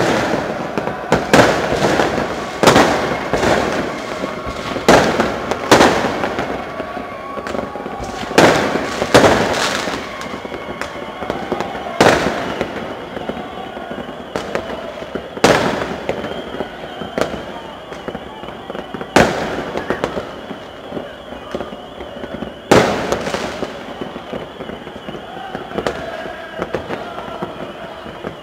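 Fireworks and firecrackers going off across the neighbourhood: loud sharp bangs every second or so at first, thinning out to single cracks several seconds apart, over a steady background din.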